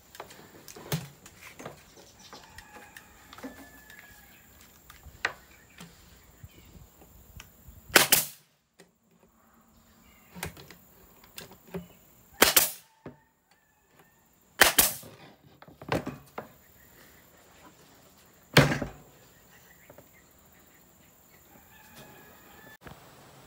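Hitachi NT50AE2 pneumatic 18-gauge brad nailer firing brads into plywood: four loud sharp shots a few seconds apart, with fainter clicks and knocks of the tool being handled and repositioned between them.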